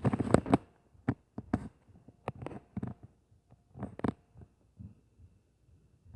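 Irregular thumps and bangs of footsteps stomping on the floor of the apartment upstairs, heard through the ceiling, a rapid cluster of loud ones at the start, then single thuds every half second or so.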